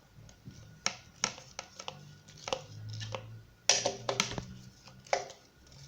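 Scattered clicks and knocks from handling the freshly assembled ceiling fan and its blades, with a close cluster of sharper knocks about four seconds in.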